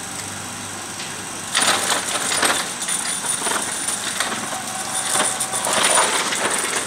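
Irregular metallic clinking and rattling of steel framing and lifting-rig hardware being handled, starting about a second and a half in, over a steady engine-like background hum.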